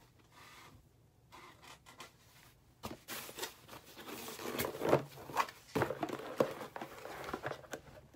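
Irregular rustling, clicks and scrapes of someone rummaging through trading-card supplies for a thicker top loader, starting about three seconds in after a quiet start.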